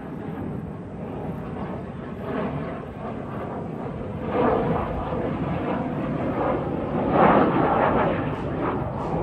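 Jet noise from a low-flying Mitsubishi F-2 fighter's single turbofan engine, a steady rush that grows louder about four seconds in and is loudest around seven seconds as the jet passes.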